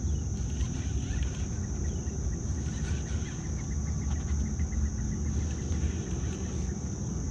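Outdoor river ambience: a steady low rumble of wind and moving water on the microphone, under a continuous high-pitched insect buzz. A quick run of light ticks comes about two seconds in.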